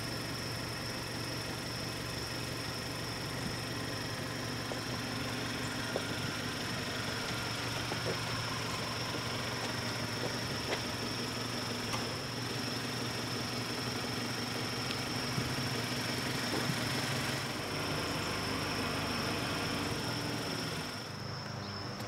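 Mazda3's 2.0-litre Skyactiv four-cylinder engine idling steadily, a low even hum, with a thin steady high-pitched whine over it.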